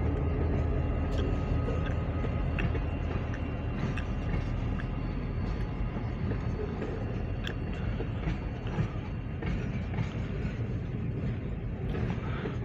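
Norfolk Southern mixed freight train rolling past: a steady rumble that eases over the first few seconds, with scattered clicks of the wheels over the rail joints.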